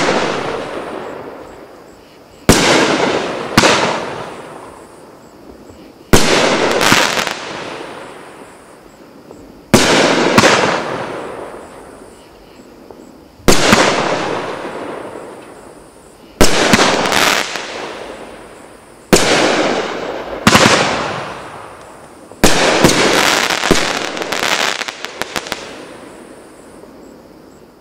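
A TNT 'True Blue' 500-gram consumer fireworks cake firing its aerial shots, a sharp bang every few seconds, sometimes two in quick succession, each followed by a crackle that fades over a few seconds. Near the end comes a faster flurry of bangs and crackles as the finale.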